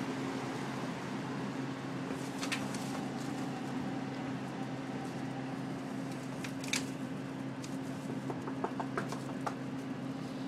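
Steady low mechanical hum with an even street-noise hiss, broken by a few light clicks, several of them close together near the end.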